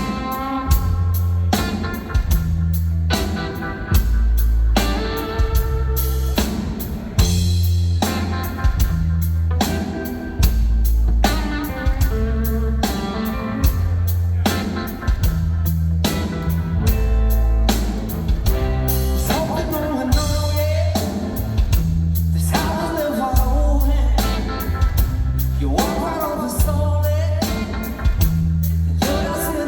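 Live blues-rock from a two-piece band playing loud: distorted electric guitar over a pounding drum kit, with a man singing in the latter half.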